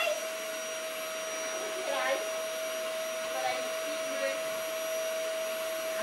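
Canister vacuum cleaner running steadily, its motor giving a constant whine over a hiss of rushing air.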